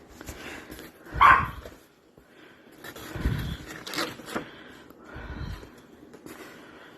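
A dog barks once, loudly, about a second in, then makes a lower, shorter sound a couple of seconds later; light knocks and rustling sit between.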